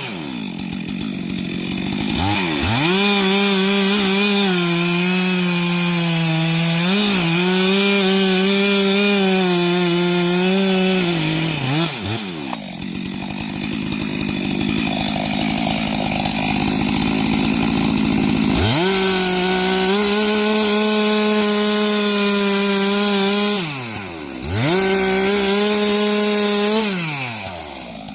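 Chainsaw cutting a tree, run at full throttle in three long bursts of several seconds each, the engine dropping back toward idle between them.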